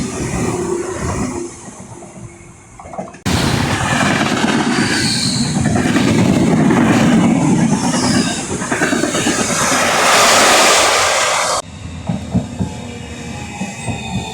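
Train running on rails, with the clickety-clack of wheels and a loud rushing noise that starts abruptly about three seconds in and cuts off abruptly near the end.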